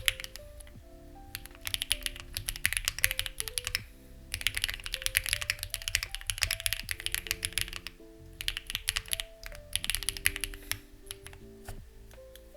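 Typing on a Lucky65 v2 mechanical keyboard with stock, unlubricated HMX Ziwei switches and CMK-style keycaps: rapid flurries of keystrokes broken by short pauses about every second or two. Soft background music with held notes plays underneath.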